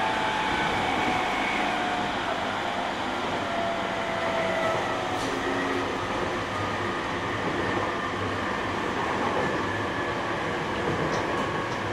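Cabin running sound of a JR 209-500 series electric train with a Mitsubishi GTO VVVF inverter: a steady rumble of wheels and motors, with faint inverter and traction-motor tones slowly falling in pitch as the train slows.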